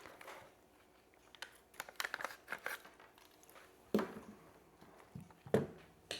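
Small clicks and rattles of a camera mount being handled and fitted onto a motorized pan-and-tilt head, with two sharper knocks about four and five and a half seconds in.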